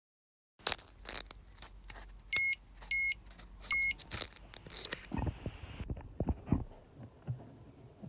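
Electronic carp bite alarm sounding three short beeps about half a second apart, signalling line being taken on a take, amid sharp clicks and then low knocks of handling.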